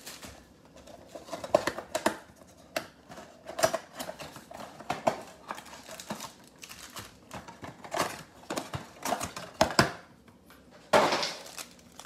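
Cardboard trading-card mega box being opened by hand: scattered taps, scrapes and flap sounds of the box, then a louder crinkly rustle of a foil card pack about eleven seconds in.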